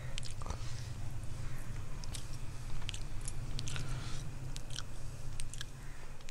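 A fork clicking and scraping against a black iron tawa and the crisp fried fish as the cooked fish is flaked apart, in scattered irregular taps, over a steady low hum.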